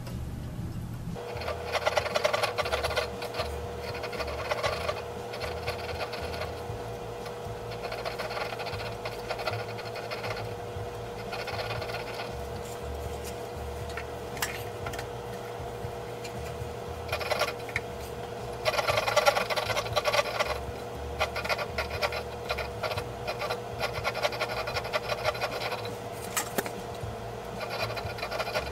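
Small three-cornered needle file scraping along the steel pilot screw threads of an auger bit, in short bouts of rapid strokes with pauses between, cleaning up the threads. A steady faint hum starts about a second in and runs under it.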